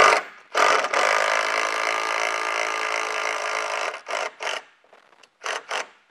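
Impact wrench driving a 3-inch lag screw with washer into wood. It makes one steady run of about three and a half seconds, then four short bursts as the screw is snugged without over-tightening.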